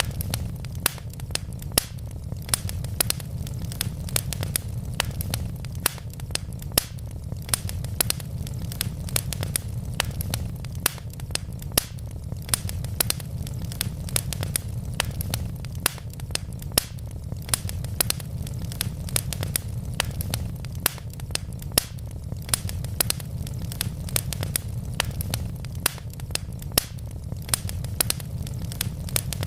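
Wood fire burning in a fireplace: a steady low rumble of flames with frequent sharp crackles and pops from the burning logs, several a second.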